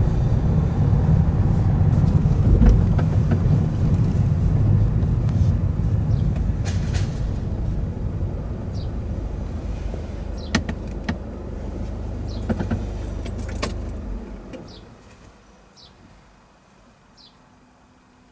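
Car engine and road noise as the car drives up and slows to a stop, the low rumble easing off, with a few sharp clicks; about fourteen seconds in the engine noise drops away suddenly, leaving only faint short chirps.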